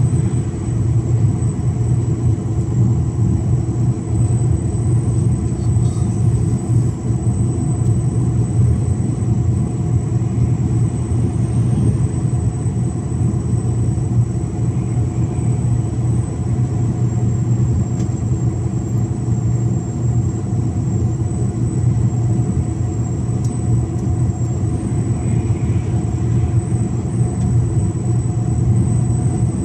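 Mercedes-Benz Actros 1853 truck's diesel engine running steadily under cruise with road noise, a constant low drone that holds the same pitch throughout, over a faint high whine.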